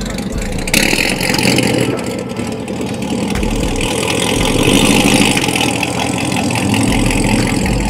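A car's engine and exhaust running as the car pulls away, with a broad rush of noise coming in about a second in and the sound swelling toward the middle.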